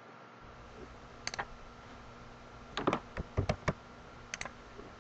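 Faint, scattered clicks of a computer mouse and keyboard during CAD work: a double click about a second in, a quick run of several clicks near the middle, and another pair near the end, over a steady low hiss.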